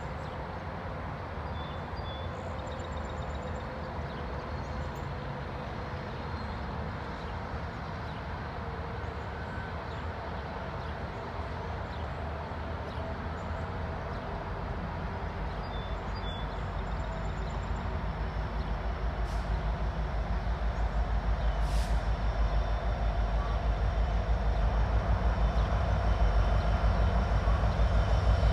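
Norfolk Southern diesel freight locomotive and its train approaching across a bridge: a low rumble that grows steadily louder through the second half.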